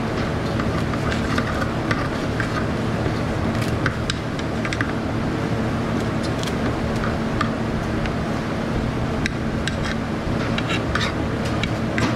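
A steady machine hum, like a running fan, with scattered sharp clicks and snips of kitchen shears and tongs cutting roast goose on a ceramic plate.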